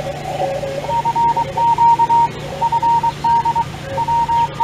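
Morse code (CW) signals coming from a ham radio transceiver's speaker: two stations at different pitches keying dots and dashes. The lower-pitched one fades about a second in, while the higher one keys on steadily.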